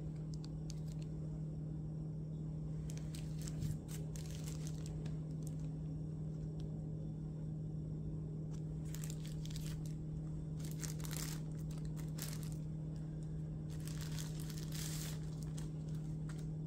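Thin plastic and paper wrapping crinkling and rustling as a pair of sunglasses is slid out of it and handled, in three spells about three, nine and fourteen seconds in, over a steady low hum.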